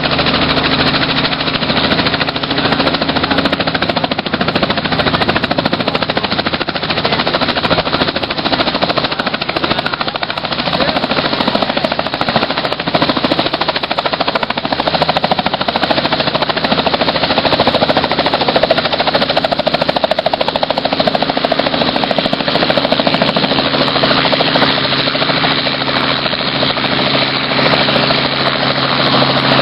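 Two-bladed light helicopter lifting off and hovering low close by: loud, steady rotor chop over the running engine.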